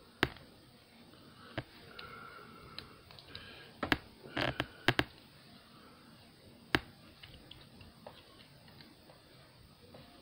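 Sharp plastic clicks from the joints and parts of a Transformers Legacy Blurr action figure as it is twisted and unpegged during transformation. The clicks come one at a time, with a quick run of four or five about four to five seconds in, between faint rustling of the handled plastic.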